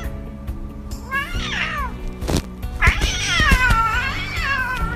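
A cat meowing: a short meow falling in pitch about a second in, then a long drawn-out meow that wavers and dips in pitch, with a single knock between them, over background music.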